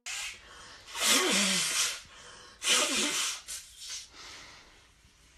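A person blowing his nose hard into a tissue: two long, loud blows with a wavering tone in each, after a short one at the start and followed by a few weaker sniffs and puffs.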